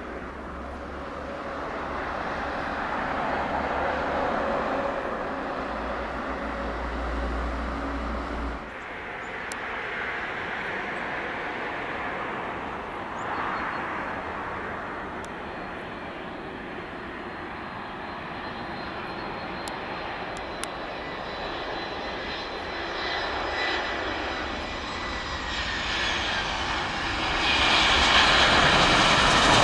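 Jet airliner engine noise: first an Airbus A321 with a low rumble, rolling out on the runway, then, after an abrupt change about nine seconds in, an Airbus A320 on final approach. The A320's engines whine steadily and grow louder toward the end as it touches down.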